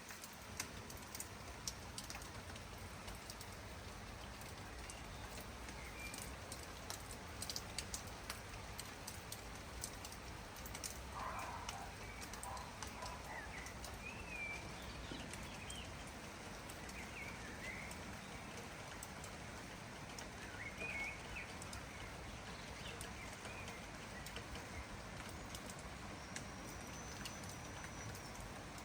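Steady rain falling, with scattered sharp drop ticks, and a few short bird chirps in the middle. A thin high note sounds near the end.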